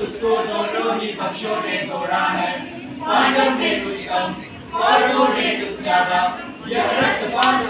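A group of voices singing a song in chorus, in sung phrases that swell and break every second or so. There is a single sharp click near the end.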